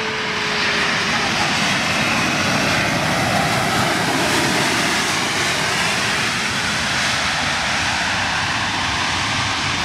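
Jet airliner's engines on the runway: a loud, steady rushing roar that swells in the first second and then holds.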